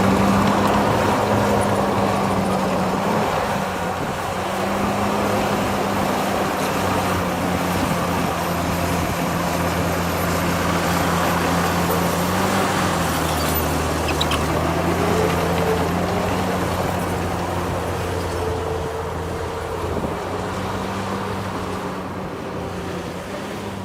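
Heavy diesel engine of earthmoving machinery running steadily under load, its pitch shifting a little now and then. A fainter, higher engine note wavers in the middle, and the sound slowly grows quieter toward the end.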